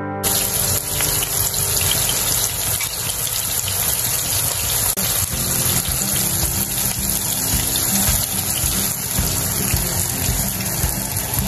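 A loud, steady rushing hiss like running water, laid over background music; it comes in abruptly and cuts off just as abruptly.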